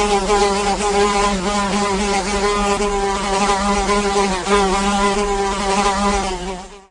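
A fly buzzing in flight: a steady, continuous buzz whose pitch wavers slightly, fading out at the very end.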